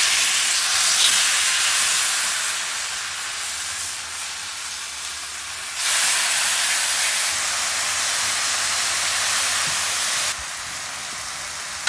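Tequila-lime-marinated chicken sizzling on a very hot flat-top griddle: a steady loud hiss of frying and steam, swelling about six seconds in and easing back shortly before the end.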